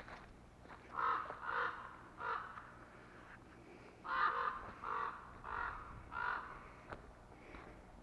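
Crows cawing in two runs, three harsh caws and then four, evenly spaced: alarm calls at a person near their nest.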